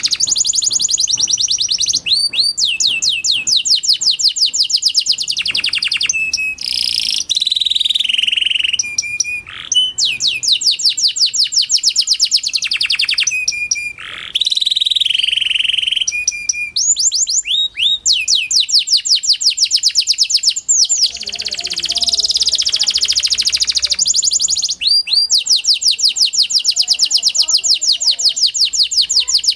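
Pied ("panda") domestic canary singing a long, high-pitched song of fast trills and rolls, broken by short pauses every few seconds.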